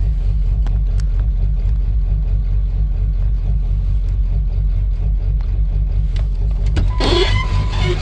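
Ford 7.3-litre V8 diesel idling with an uneven, missing beat, which the owner takes for a bad injector not spraying right at idle once the engine warms up. A brief higher-pitched sound comes in near the end.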